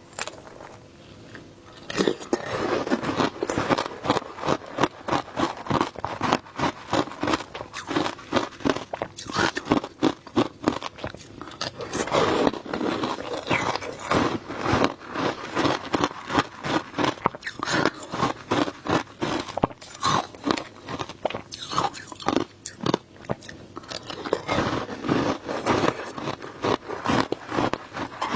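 Frozen shaved ice being bitten and chewed: a dense, uneven run of crunches beginning about two seconds in.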